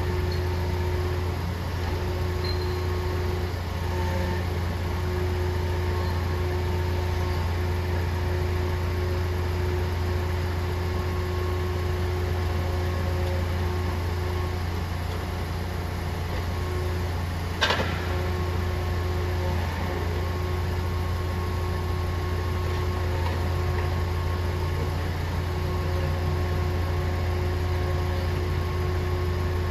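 Recycling truck's engine running steadily while its hydraulic grapple crane works: a strong low hum with a higher steady tone that drops out briefly now and then. A single sharp clank comes about 18 seconds in.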